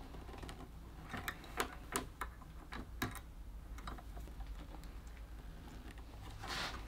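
Faint, irregular small clicks from a hand rivet gun as its handle is squeezed and the jaws grip and draw back the blind rivet's mandrel, most of them between about one and three seconds in.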